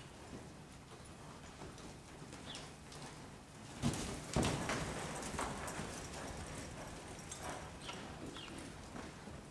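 Hoofbeats of a cutting horse on soft dirt arena footing: quiet at first, then a couple of sharp thuds about four seconds in as the horse moves off after the cow, followed by a few seconds of quick, irregular steps.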